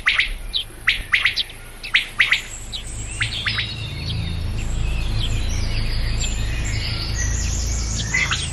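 A courting male common quail calling in short, sharp notes in quick clusters. From about three seconds in, denser twittering from other songbirds takes over over a low steady rumble.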